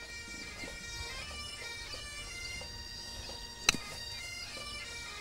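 Bagpipe music: a steady drone under changing melody notes, with one sharp click about three and a half seconds in.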